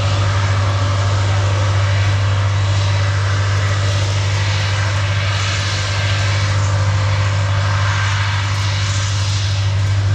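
Titan armoured bridge-layer's diesel engine running at a steady note: a constant low drone under a rushing noise.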